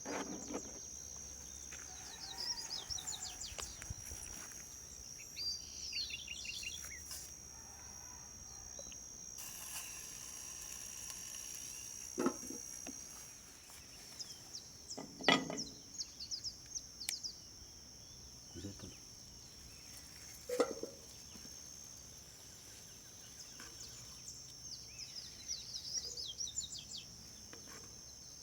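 Outdoor nature ambience: a steady high-pitched insect drone, with birds chirping now and then and a few sharp knocks around the middle.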